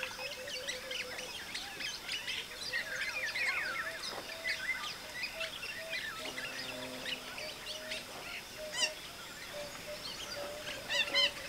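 Many birds calling at once: a dense chorus of short chirps and quick sliding whistles, over a steady run of short repeated lower notes.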